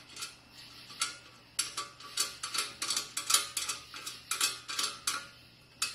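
Small steel nut, washer and bolt clicking against a light-mount bracket as the nut is threaded on by hand: a run of light, irregular metallic ticks, coming faster from about a second and a half in.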